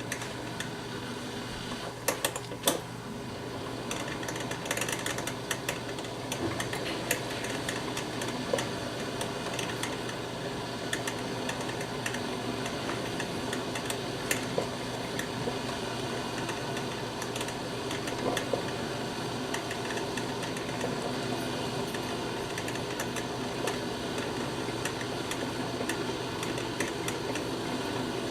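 Black & Decker thermal carafe drip coffee maker brewing: a steady hiss and hum with irregular small clicks and pops.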